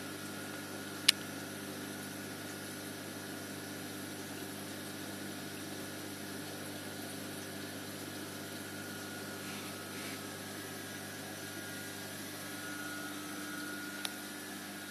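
Steady hum of a reef aquarium's pumps and water circulation, with a sharp click about a second in and a fainter click near the end.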